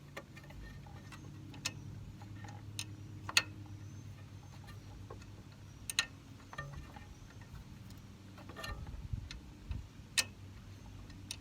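Scattered, irregular sharp metal clicks and clinks of a wrench working the 3/8-inch bolts that hold the carburetor on a John Deere L118 lawn tractor, over a low steady hum. The loudest click comes about three and a half seconds in.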